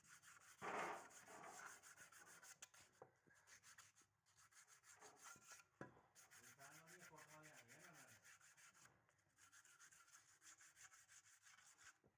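Sandpaper rubbed by hand in quick back-and-forth strokes over the rough cast-iron bed and arm of an old manual sewing machine: a faint, continuous scratchy rasping.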